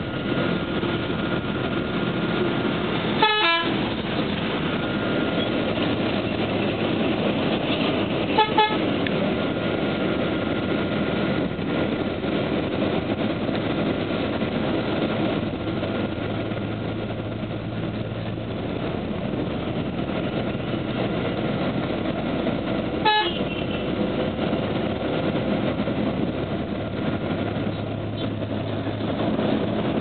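Busy city street traffic: a steady mix of engines and tyres, with vehicle horns cutting through. One short honk comes about three seconds in, two quick toots around eight seconds, and another honk a little after twenty seconds.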